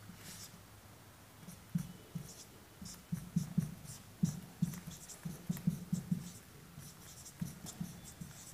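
Marker pen writing on a whiteboard: a string of short, irregular strokes and taps as structural formulas are drawn, busiest in the middle of the stretch.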